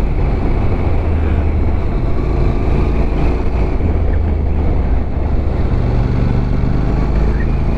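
Motorcycle engine running steadily under way, its note shifting slightly about two-thirds of the way through, with wind rush over the microphone.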